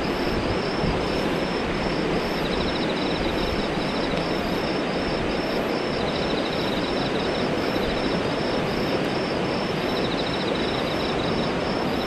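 Steady rushing of a mountain stream's current, an even hiss that runs on without a break.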